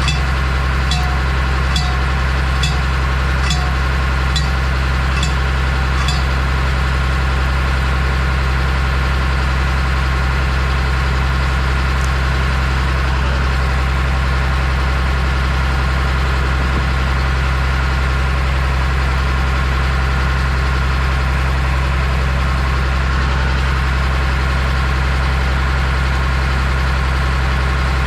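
A vehicle engine running steadily at an even speed, with a low drone. For the first six seconds a sharp tick comes a little over once a second.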